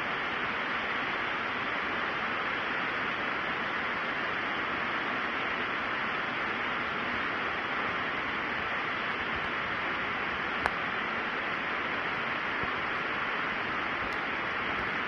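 A steady, even hiss, with a single sharp click about ten and a half seconds in.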